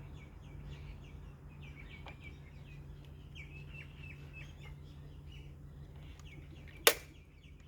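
Small birds chirping repeatedly in the background over a faint steady low hum, with one sharp click near the end.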